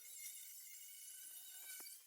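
Faint, high-pitched buzzing whine from the tool ripping a steel bar lengthwise, its pitch wavering slightly.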